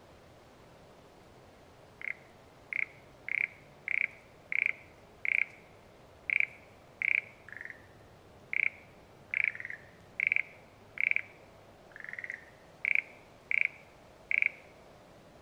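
A frog calling in a series of short croaks, about one or two a second. The calls start about two seconds in and stop near the end. A few of them are lower and rattling.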